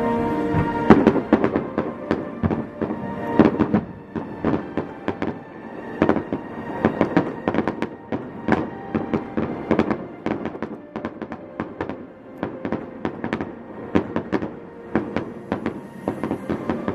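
Aerial fireworks bursting, many sharp bangs in quick succession, with music playing underneath.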